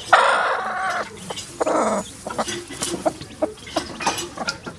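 Hen squawking and clucking: a loud harsh call at the start and another near the middle, then short scattered clucks.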